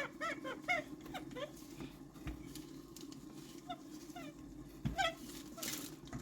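Birds chirping in runs of short, quick repeated calls, twice, over a steady low hum, with a couple of soft knocks.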